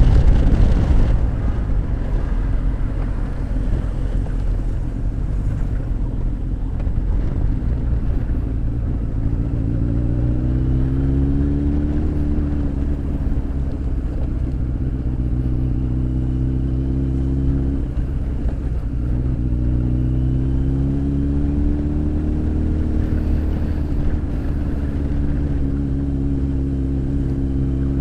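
Honda X4's inline-four engine running under way, with wind rushing over the microphone, loudest in the first second or so. Twice the engine note rises as the bike accelerates, about a third of the way in and again past the middle, then holds steady.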